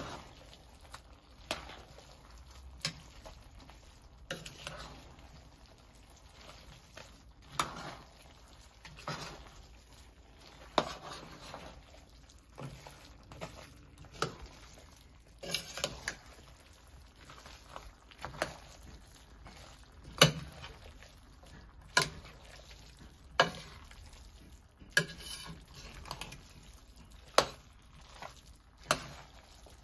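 A spoon stirring chicken pelau in a pot, knocking sharply against the pot every second or two, over a faint sizzle as it cooks down on raised heat.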